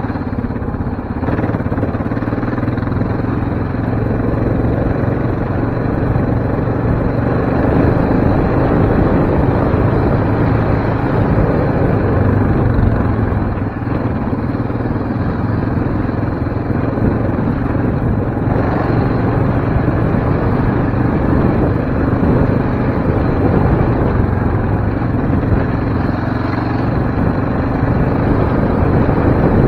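Yamaha Raptor 700R sport quad's single-cylinder engine running steadily under way on a dirt trail, heard close up from on board, with only small changes in throttle.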